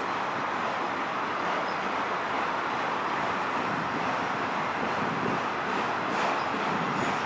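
Canadian Pacific freight train of autorack cars rolling past, a steady rumble of wheels on rails, with faint high-pitched squeals coming in about halfway through.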